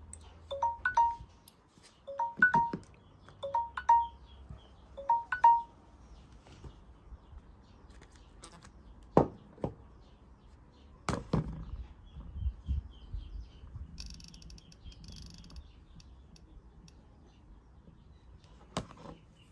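A phone's electronic alert chime, a lower note followed by a higher one, repeating about every second and a half and stopping about five seconds in. After that there are a few sharp taps and knocks as the phones are handled.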